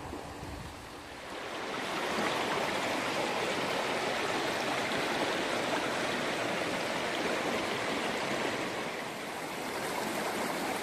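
River water rushing steadily, growing louder about a second and a half in and then holding.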